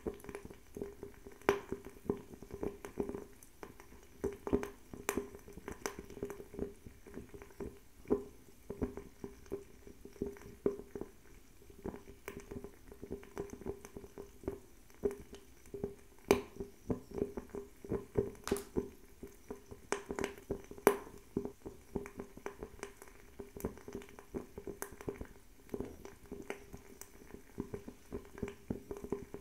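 Fire crackling: irregular sharp crackles and pops, several a second, over a low steady hum of flame.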